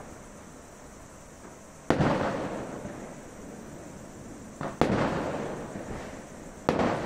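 Fireworks and firecrackers bursting in the distance: three loud bangs, about two seconds in, near five seconds and near the end, each followed by a long fading echo.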